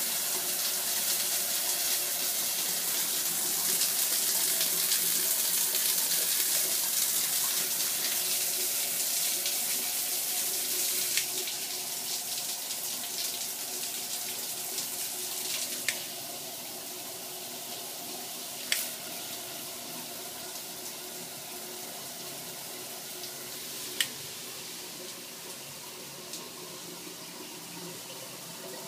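Water spraying from a shower head in a steady hiss, louder for the first ten seconds or so and then quieter. Four short sharp clicks come through it in the second half.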